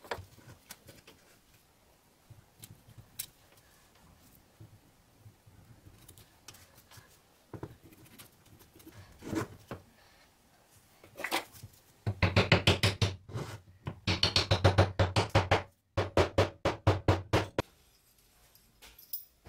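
Hand work on knife handle parts: scattered small clicks and knocks, then about five seconds of loud, rapid clattering strokes with a brief break in the middle.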